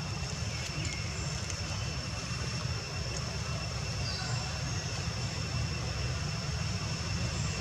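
Steady outdoor background noise: a low rumble with thin, steady high-pitched whines above it.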